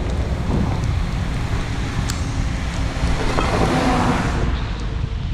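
Wind buffeting a helmet-mounted action camera's microphone while cycling on a wet road, over a steady low rumble. A tyre hiss on wet pavement swells about three seconds in and fades away a second or so later.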